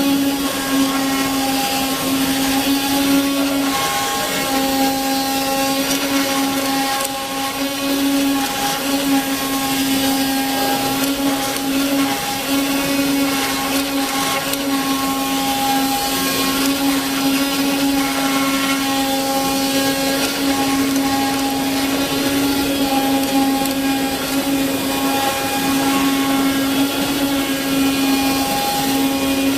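RZCUT-250 CNC knife cutting machine running: a steady motor hum with higher whining tones that come and go every second or so, over a constant hiss.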